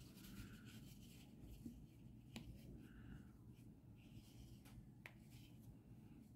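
Near silence: faint rustling and rubbing of fingers packing toy stuffing into a crocheted amigurumi body, with a few soft ticks.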